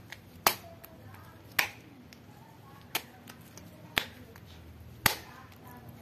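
Brown slime, clear slime mixed with coffee, coffee creamer and sugar, being stretched and folded by hand, giving a sharp pop or snap about once a second.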